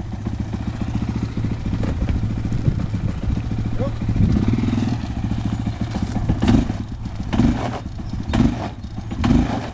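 Quad bike (ATV) engine running steadily, then working under load as it pulls on a tow strap, surging about once a second in the second half.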